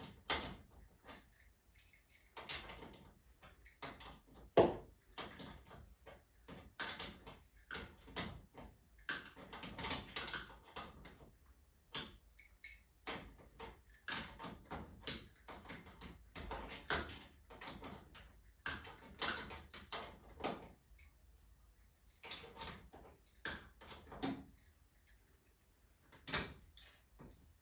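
Irregular metallic clinks, taps and rattles of hand tools and hardware being handled, with no steady rhythm. These are the working sounds of garage door torsion spring parts being fitted.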